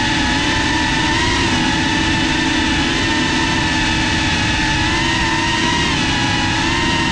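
FPV quadcopter's motors and propellers whining as recorded by the GoPro on board, the pitch wavering slightly with throttle, over a rough rumble of wind and prop wash.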